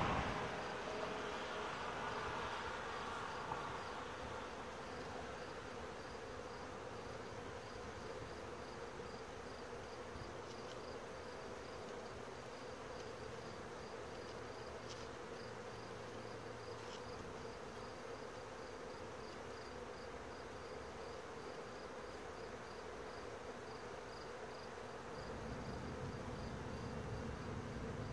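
Honeybees buzzing around a beehive in a steady hum.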